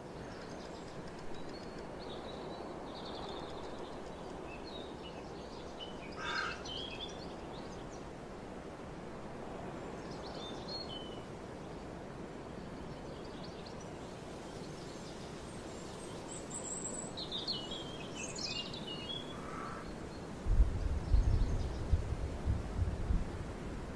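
Steady background noise with scattered bird chirps and calls. About twenty seconds in, an irregular low rumble sets in and becomes the loudest sound.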